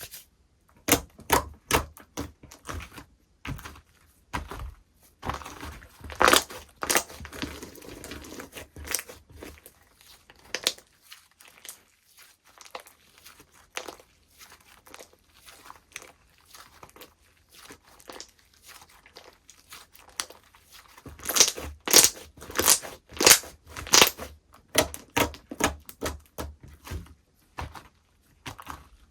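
Slime being pressed, stretched and squished by hand, giving a run of irregular sharp clicks and crackling pops. The clicks are loudest and thickest about three-quarters of the way through.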